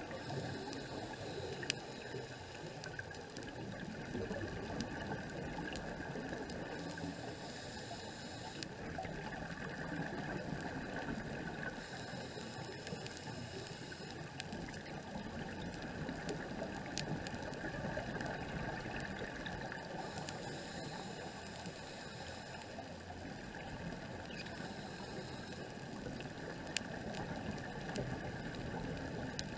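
Underwater ambience heard through a camera housing: a steady rush, with the diver's scuba regulator exhaling bursts of bubbles every several seconds and a few sharp clicks.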